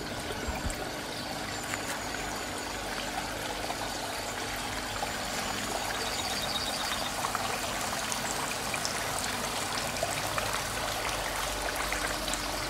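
Water trickling steadily through a garden pond's planted lagoon filter and stone-filled channel, fed at a low flow by a small pump.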